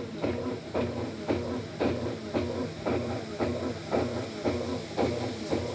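Consul washing machine running after its rat-chewed wiring was spliced, its motor humming and driving the agitator back and forth in even strokes about twice a second: the machine has started its wash cycle once the syringe on the level-sensor hose was pressed.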